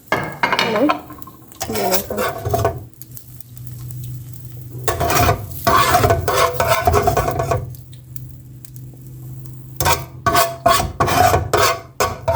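Cooking utensil scraping and clattering against a pan in four bursts of strokes, as food in the pan is turned and worked, with some sizzling.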